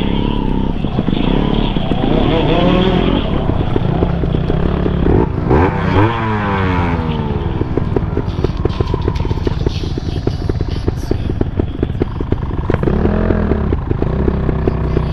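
Off-road motorcycle engine running on a trail climb, revved hard about five seconds in and then falling away in pitch, running on steadily afterwards.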